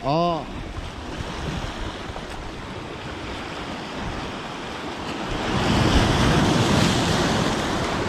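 Sea waves washing onto a pebble beach in a strong wind. One wave surges noticeably louder about five and a half seconds in, then eases back.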